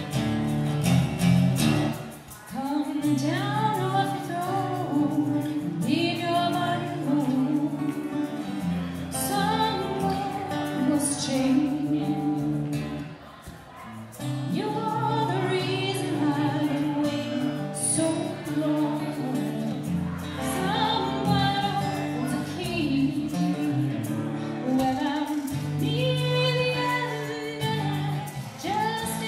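A woman singing a slow melody live into a microphone, accompanied by a man playing an acoustic guitar, with brief dips between sung phrases about two and thirteen seconds in.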